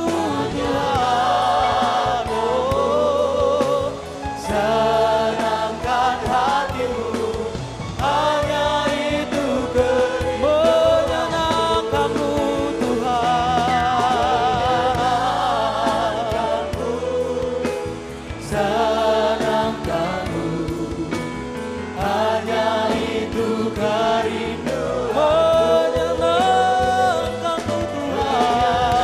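Congregation and worship team singing a gospel worship song together, with band accompaniment. The voices come in sung phrases with brief dips between them.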